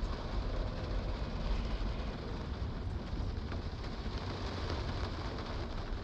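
Steady rain, a continuous even hiss, over a constant low rumble.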